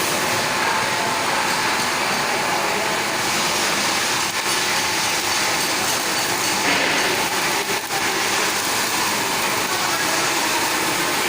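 Steady, loud machine noise, a dense hiss with a faint hum beneath, dipping briefly twice.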